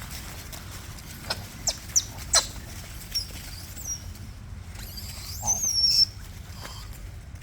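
High-pitched animal calls: a few short sharp squeaks, then thin wavering whistled calls, the loudest about five to six seconds in, over a steady low rumble.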